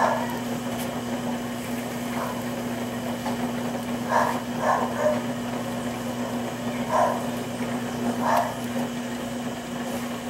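Electric potter's wheel motor humming steadily as the wheel spins. Short, soft sounds come every second or two over the top of it.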